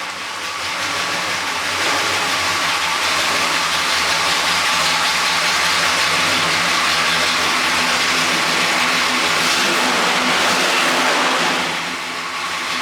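1968 Pontiac GTO's 400 V8 running at low speed as the car is driven, getting louder about two seconds in and dropping back near the end. The carburetor still needs some tuning, in the owner's view.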